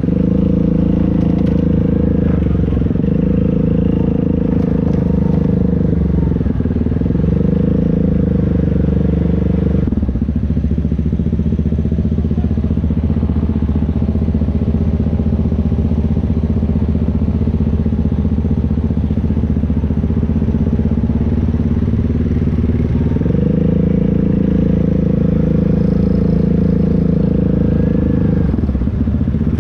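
ATV engine running steadily under throttle. The pitch drops about ten seconds in and rises back up a little after twenty seconds, with another brief dip near the end.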